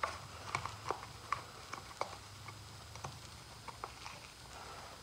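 Scattered light clicks and taps of hands working the plastic air filter cover on a RedMax edger engine, irregular and a few to a second, over a faint low hum.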